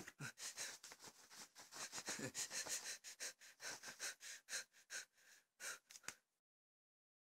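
A person breathing fast and unevenly: a faint run of short, sharp breaths or sniffs, about two to four a second, that stops about six seconds in.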